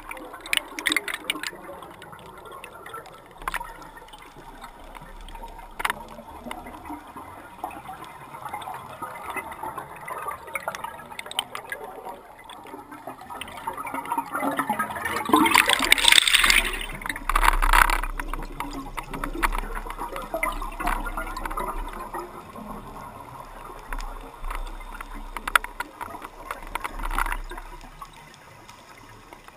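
Scuba diver's exhaled bubbles gurgling from the regulator, heard underwater through the camera housing, with a loud rush of bubbles about halfway through and scattered small clicks.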